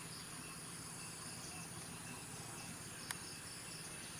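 Steady high-pitched chirring of insects such as crickets, with one sharp click about three seconds in.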